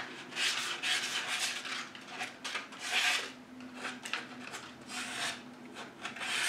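Sandpaper, 220 grit, rubbed by hand along the edge of a cradled wood panel in short, uneven scratchy strokes, smoothing the trimmed edge.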